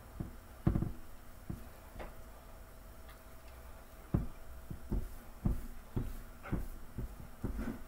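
A hand patting and rubbing seasoning into a rack of raw ribs on a metal sheet pan: irregular soft thumps and knocks, about a dozen of them.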